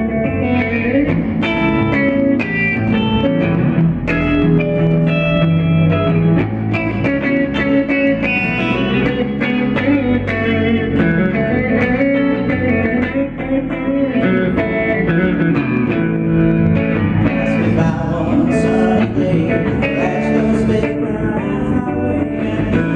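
Live rock-and-roll band playing an instrumental passage led by picked electric guitar, and singing comes back in near the end.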